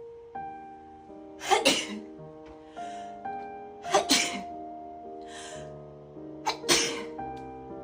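A string of loud allergy sneezes, three bursts about two and a half seconds apart, the first a quick double, with a short breathy sound between them. Background music with held notes plays underneath.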